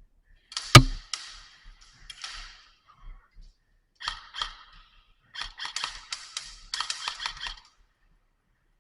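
Airsoft gunfire: one very loud sharp crack about a second in, then several bursts of rapid shots.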